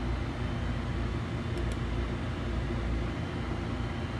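Steady low room hum, with two faint short clicks about a second and a half in.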